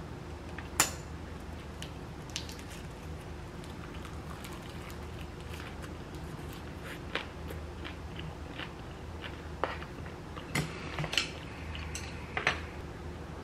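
Eating at the table: chopsticks clicking against bowls and a cup, with soft chewing. A sharp click about a second in and a quick cluster of clicks near the end.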